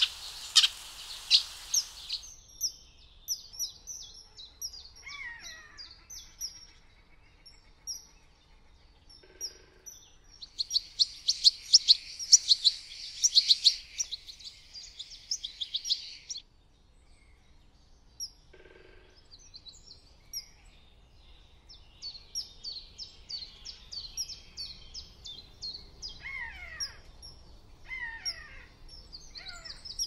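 Small songbirds singing and chirping: a fast trill at the start and a longer burst of rapid song from about eleven to sixteen seconds in, with scattered high chirps and a few falling whistles between.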